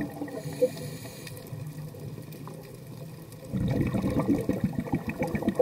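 A scuba diver's exhaled bubbles from the regulator, burbling underwater and heard through the camera housing. After a quieter stretch, a loud bubbling exhalation begins about three and a half seconds in.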